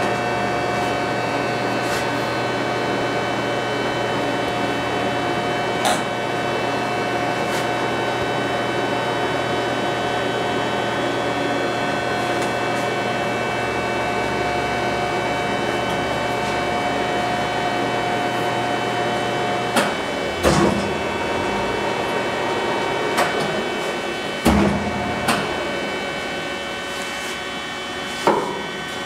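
Enco 405G geared-head engine lathe running with its chuck spinning: a steady gear-train whine made of several fixed tones. About twenty seconds in its low hum drops out, and a series of sharp clunks follows as the carriage and headstock levers are shifted.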